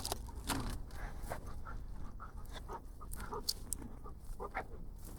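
Bird dog panting close by, with irregular short crunches and knocks over a steady low rumble.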